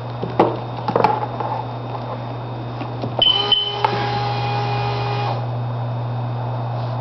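Sea-Doo GTX DI personal watercraft with no engine running: a few sharp clicks, then about three seconds in a short high beep and a steady electronic buzzer tone lasting about two seconds, over a constant low hum.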